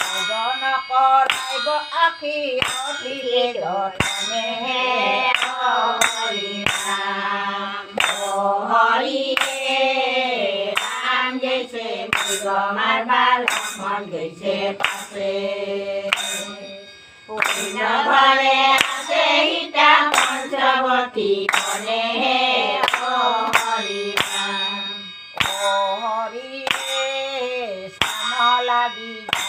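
A group of women singing Assamese naam, a devotional chant, to hand clapping, with a ringing metal strike on each beat about every 1.3 seconds.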